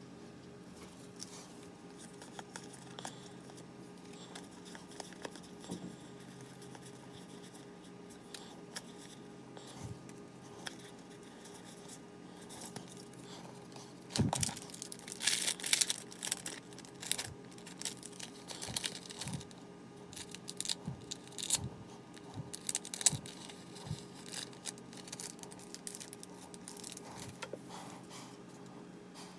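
Foil Pokémon card booster-pack wrapper crinkling and tearing and trading cards being handled: scattered light clicks at first, then a busy run of sharp crackles from about halfway through. A steady low hum sits underneath.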